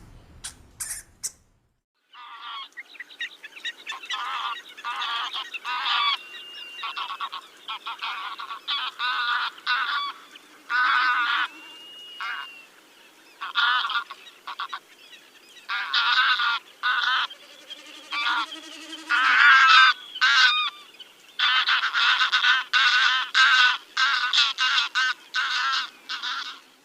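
Domestic geese honking: a long series of short calls that begins about two seconds in, with some calls coming in quick runs.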